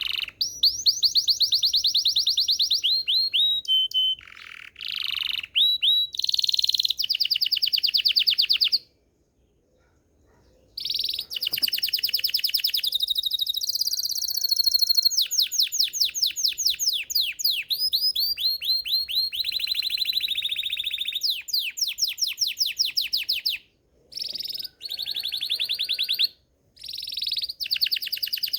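Belgian canary singing: phrases of rapid trills, each a fast run of repeated notes, changing from one roll to the next. The song stops for about two seconds roughly a third of the way in, and breaks briefly twice near the end.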